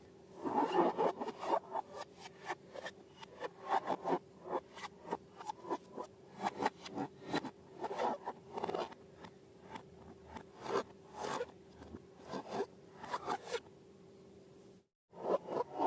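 Slime being worked by hand: a dense run of irregular sticky clicks and crackles, over a faint steady hum. The sound drops out completely for a moment near the end.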